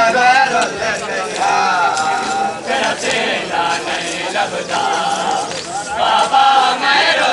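A crowd of men chanting a noha, a Shia mourning lament, together in drawn-out phrases of about a second each.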